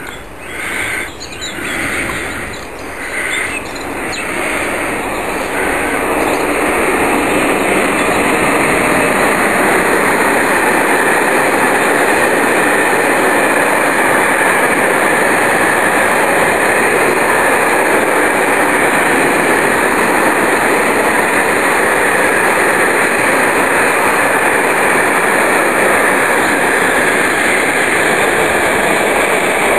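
A long freight train of covered hopper wagons passing close by on an electrified main line: the sound swells over the first few seconds as the train arrives, then holds as a steady loud rumble of steel wheels on the rails as the wagons roll past.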